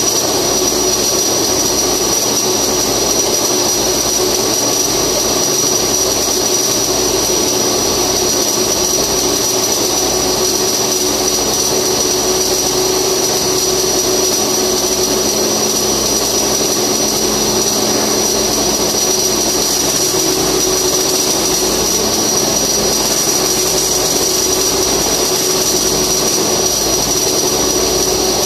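Flux-cored arc welding: the arc running without a break as a loud, steady hiss with a thin high-pitched tone held throughout.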